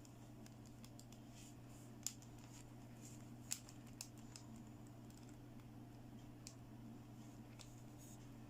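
Scattered light clicks and taps of small plastic toy pieces being handled, the sharpest about two seconds in and about three and a half seconds in, over a faint steady hum.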